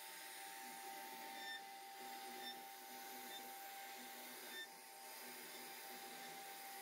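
CNC router spindle running with a steady high whine as its bit carves a relief pattern into a wooden panel, over a faint even hiss.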